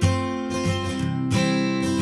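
Background music of an acoustic guitar strumming chords, with the chord changing every half second or so.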